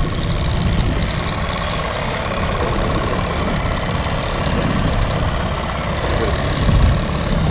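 Boat motor running steadily at trolling speed, a low rumble with a faint steady whine above it.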